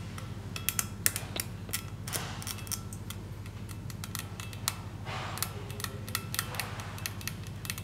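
Small hand tool clicking and scraping against the edge of a combustion chamber on a Mercedes M157 aluminium cylinder head, working loose rough casting fragments and sharp edges. Many sharp clicks, with a short stretch of scraping about five seconds in, over a steady low hum.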